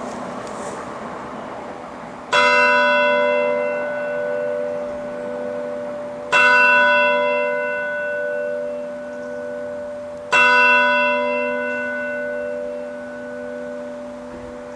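A single church bell in the Messiaskirken tower tolling: three strikes about four seconds apart, each leaving a long, slowly fading ring with a deep hum under it.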